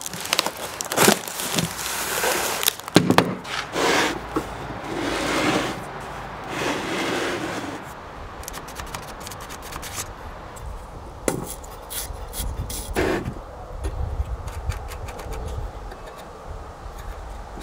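Cardboard box flaps and packing being pulled open and rustled, a run of scraping and rustling for the first several seconds. After that come a few scattered light knocks and clicks as the rusty stove is handled.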